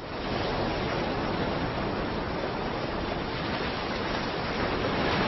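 Loud, steady rushing hiss with no voice or tone in it, starting suddenly and cutting off abruptly.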